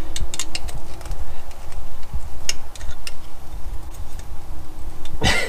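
Pliers clicking and ticking against a stuck, thread-seized air-cleaner stud on a carburetor as it is worked loose, over a steady low rumble. A louder rattle comes near the end.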